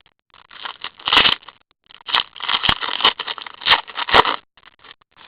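Trading cards and pack wrappers being handled close to the microphone: a run of papery rustling and scraping with a few sharp clicks, dying down to light ticks near the end.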